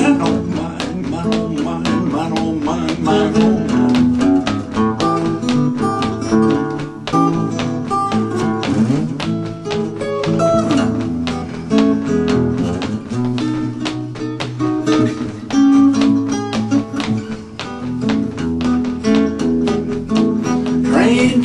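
Acoustic guitar playing an instrumental break in a rockabilly/blues tune: quick, steady picked notes over a driving low bass line.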